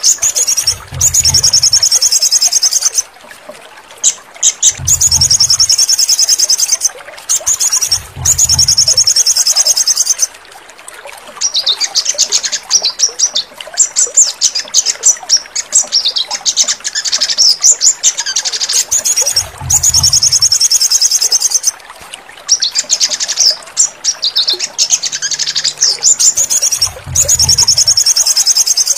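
Sogon songbird singing loud, rapid, high trilling phrases of several seconds each, broken by short pauses. A few brief low thuds come in now and then.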